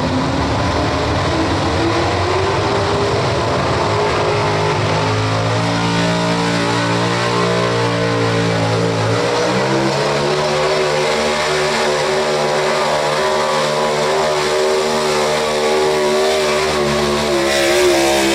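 Pro Stock 4x4 pulling truck's engine running at full throttle through a pull, its pitch climbing over the first several seconds, shifting about ten seconds in, then holding high and steady.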